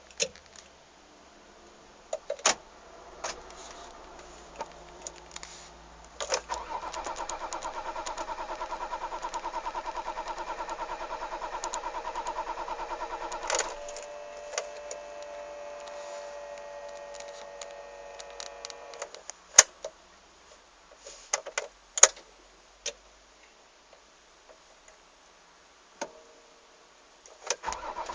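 Car starter cranking the engine for about seven seconds without it catching, a no-start. A quieter steady whine follows for a few seconds, then several sharp clicks.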